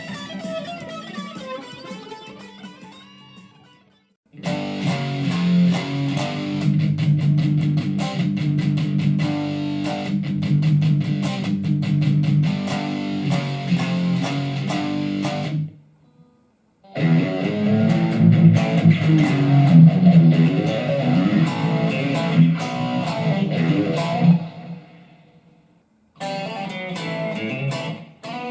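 Electric guitar played through a BOSS eBand JS-10 practice amp, trying out its tone presets: a note rings out and fades over the first few seconds, then three short phrases follow, each cut off by a brief silence.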